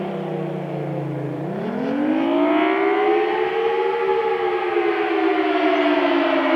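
Federal Signal Thunderbolt 1000T civil defense siren sounding the Attack signal, a rising and falling tone with several pitches at once. The pitch sinks low about a second and a half in, climbs to a peak around four seconds in, then slowly falls again.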